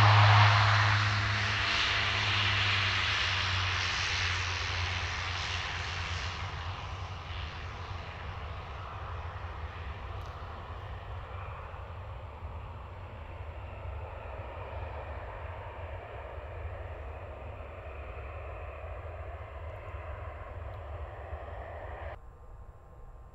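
Twin-turboprop commuter airliner rolling out on the runway after landing. Its engines and propellers give a steady low drone with a rushing noise above it, fading gradually as the plane moves away. The sound cuts off suddenly near the end.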